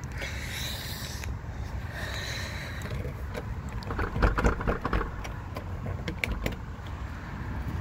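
A run of sharp clicks and knocks in the middle as a door and its frame are tugged and pried at, over a steady low rumble.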